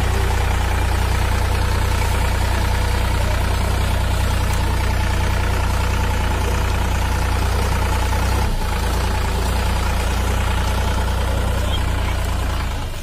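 Diesel tractor engine running steadily close by, a deep low rumble with a faint steady tone above it; the rumble eases a little about eight and a half seconds in.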